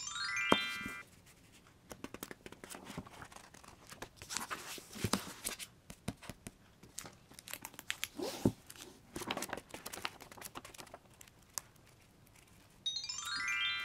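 Paperback books handled on a wooden tabletop: irregular paper rustling, cover slides and light taps, with pages riffled through quickly. A short rising chime plays at the start and again near the end.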